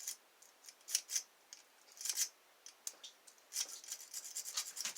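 Dimple rake scraping in and out of a dimple lock's keyway, raking the pins: short scratchy metal strokes, a few spaced apart, then a quick run of them about three and a half seconds in.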